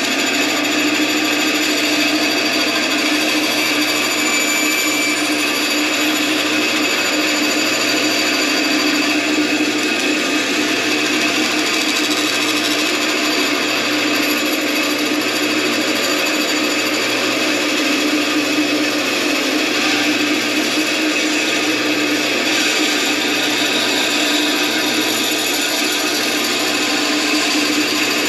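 Bandsaw running steadily while its blade cuts through two taped-together sheets of quarter-inch black HDPE plastic, a soft material that cuts easily. It is a continuous even hum with several steady tones throughout.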